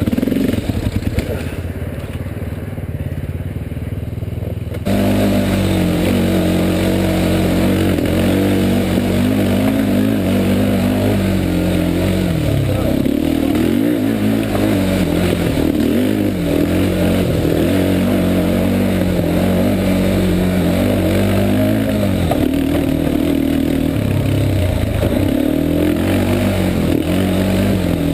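Yamaha Warrior 350 ATV's single-cylinder four-stroke engine running under load on a rough trail, its pitch rising and falling with the throttle. It is quieter and duller for the first few seconds, then louder from about five seconds in.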